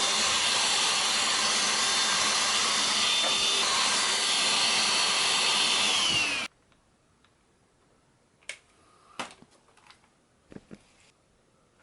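Gwell G5 cordless handheld vacuum cleaner running with a steady high whine. It is switched off about six seconds in, the whine sliding down in pitch as the motor stops. A few light clicks and knocks follow.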